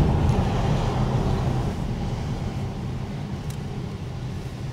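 Road and engine noise inside a moving car, growing gradually quieter.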